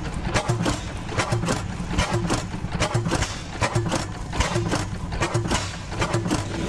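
Antique vertical stationary gas engine running, its twin flywheels spinning, with a rapid, uneven clatter of mechanical knocks over a low rumble.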